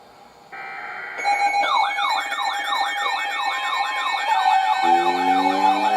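Emergency Alert System SAME header data burst ending about a second in. It is followed by a steady alert tone and a fast, repeating electronic siren warble. Near the end, low siren tones rise underneath.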